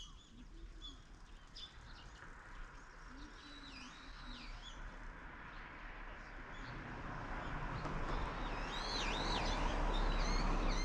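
Small birds chirping repeatedly in short, high, pitch-sweeping calls. Under them a steady rushing noise swells over the second half and becomes the loudest sound.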